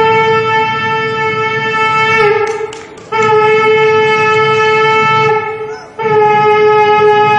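A mimicry artist imitating a horn with his voice: three long, steady held notes at one pitch, each sagging slightly in pitch as it ends, with short breaks between them.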